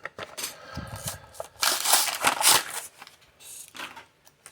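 Plastic blister pack and cardboard backing of a Hot Wheels car crinkling and crackling as it is torn open by hand, in irregular bursts, loudest around the middle.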